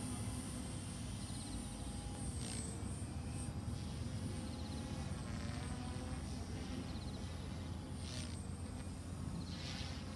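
Distant electric RC helicopter (OXY3) whining steadily in flight, its tone wavering slightly as it manoeuvres, over a low rumble of wind on the microphone.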